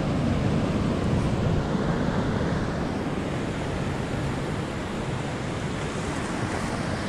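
Steady rush of river rapids and whitewater pouring over rock.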